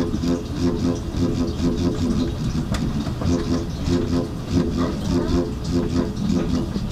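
Aftermarket TEIN Type Flex coilover shock absorber on the right rear of an R32 Skyline making a pitched groaning noise each time the car body is rocked on its suspension, repeating in a steady rhythm. The noise comes from the right rear damper only, a sign of a fault in that absorber.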